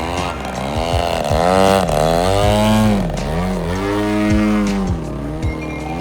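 Engine of a large RC aerobatic model plane in flight, its pitch rising and falling several times as the throttle is worked and the plane passes by.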